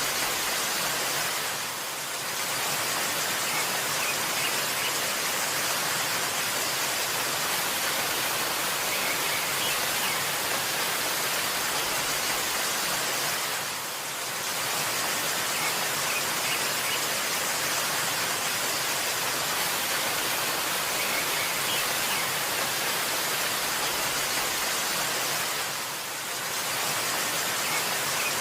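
A waterfall rushing in a steady, even hiss that dips slightly about every twelve seconds, with a few faint high bird chirps twice.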